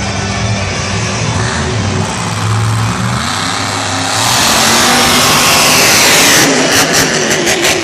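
Monster truck's supercharged V8 engine revving hard as the truck accelerates. It gets much louder about four seconds in, then runs in uneven pulses near the end as the truck jumps a dirt ramp.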